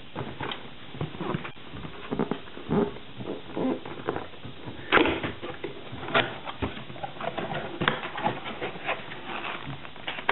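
Cardboard retail box being opened by hand: irregular scraping, tearing and tapping as fingers pry the flap tab loose and lift the cardboard flaps, with the loudest snap about five seconds in.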